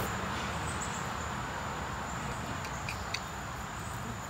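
Outdoor background noise: a steady low rumble with a thin, steady high-pitched tone over it, and a few faint ticks about two to three seconds in.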